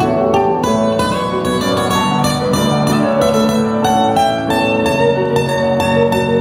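Plucked string instruments playing a melodic piece live, many quick plucked notes over sustained lower tones.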